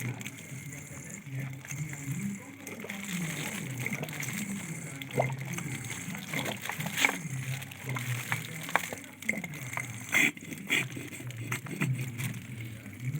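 Liquid sloshing and gurgling, with indistinct voices and a few sharp clicks in the background.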